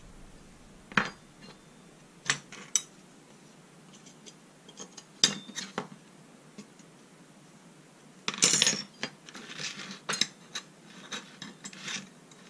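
Small steel parts clinking and tapping as they are handled and set down on a workbench: a few separate sharp clinks, then a longer rattle and scrape a little past halfway, followed by lighter scattered taps.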